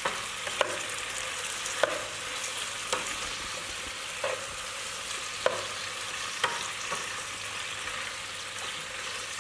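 Broccoli and red chili sizzling in oil in a pan as they are stir-fried with a wooden spatula, which knocks against the pan about once a second.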